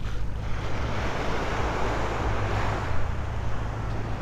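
Wind buffeting the microphone with a steady low rumble, over the wash of small waves on a sandy beach.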